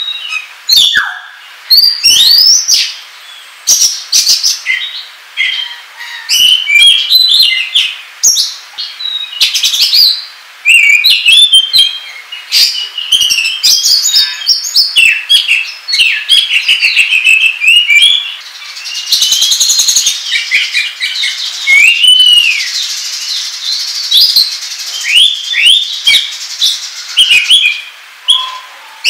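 Oriental magpie-robin (kacer) singing loudly in the agitated 'ngobra' style: a fast, varied run of high whistles, sweeping notes and trills, with a stretch of harsh, scratchy chatter about two-thirds of the way through.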